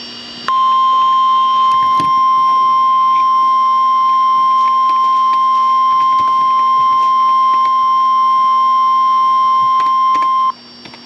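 NOAA Weather Radio 1050 Hz warning alarm tone: one steady high beep that starts about half a second in, holds for about ten seconds and cuts off abruptly near the end. It signals that a warning message is about to be broadcast.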